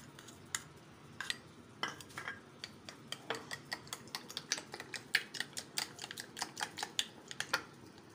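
A plastic spoon clicking against the side of a small bowl as a raw egg is beaten into a wet masala. A few spaced taps come first, then quick, steady clicks of about four or five a second from about two seconds in.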